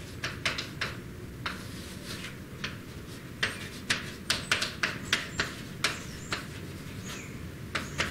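Irregular sharp taps and clicks, two or three a second, with faint short high squeaks among them.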